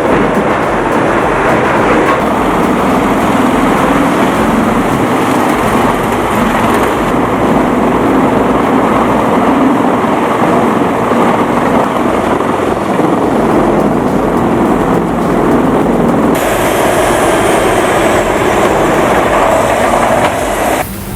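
Large industrial wood grinder or chipper running under load, a loud steady grinding and engine noise. Its character changes abruptly about two seconds in and again about sixteen seconds in.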